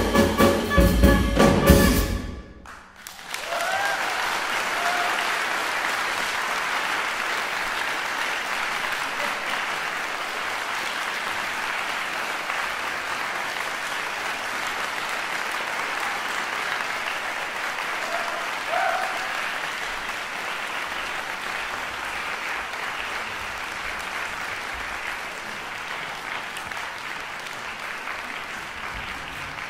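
A jazz quartet of a Chinese double-reed wind instrument, piano, double bass and drum kit ends the piece on a loud final chord that cuts off sharply about two and a half seconds in. After a brief gap, the concert-hall audience breaks into steady applause that slowly tapers.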